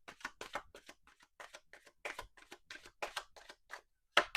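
Deck of tarot cards being shuffled by hand: a quick run of soft card flicks and snaps, several a second, with a brief pause near the end.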